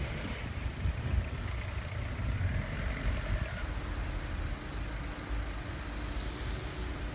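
Road traffic in a snowstorm, with wind rumbling on the microphone.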